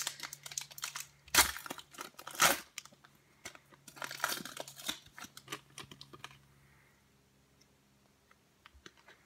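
An NBA Hoops trading card pack wrapper being torn open and crinkled, in several loud rips over the first five or six seconds. After that come a few faint clicks as the cards are handled.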